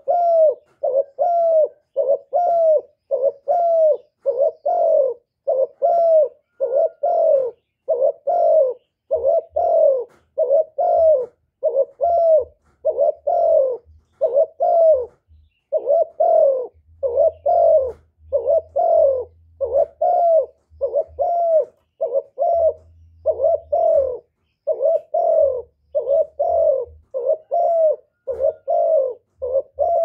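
Spotted dove cooing: a long, even run of short coos, a little over one a second, each note dipping slightly in pitch, broken by a few brief pauses.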